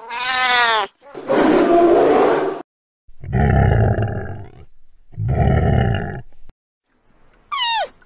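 A string of animal sound effects: a wavering cat-like call, then a growl and two low roars, and near the end a short high call that falls in pitch as the panda sounds begin.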